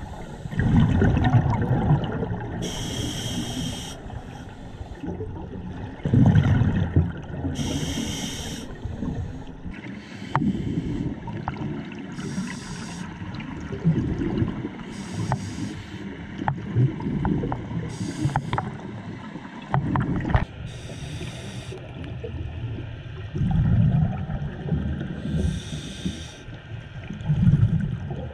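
Scuba diver breathing through a regulator underwater: short hissing inhalations alternating with louder, low bubbling exhalations, a breath every three to four seconds.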